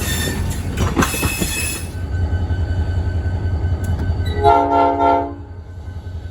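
Train running with a steady low rumble. For the first two seconds its wheels squeal and clatter, then the horn sounds one blast about a second long in the second half.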